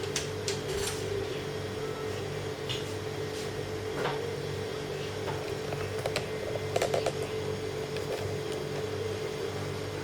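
Steady machine hum with a few sharp clicks and light knocks, several of them close together about six to seven seconds in.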